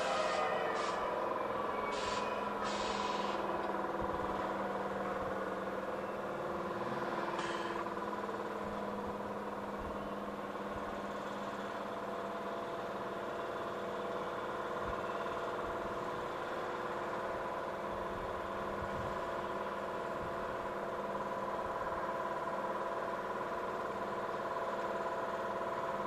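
Keihan 2600 series electric train standing at the platform, its on-board equipment giving a steady hum with several held tones. A few short air hisses come in the first three seconds and once more about seven seconds in.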